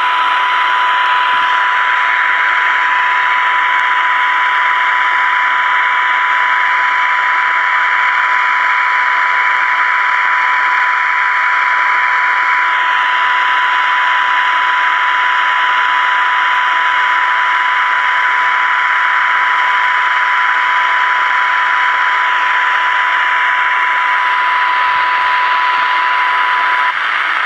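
Transistor radio speaker of a 1967 Zenith Royal 51 playing a steady test tone over hiss, the modulated 455 kHz signal from a signal generator fed in for AM IF alignment. The hiss shifts slightly a couple of times as the IF stages are adjusted, and the tone cuts off just before the end.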